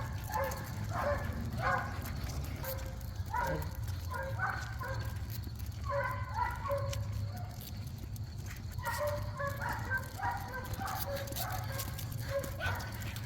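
Puppies whining and yipping in short, high calls that come in clusters, over a steady low rumble.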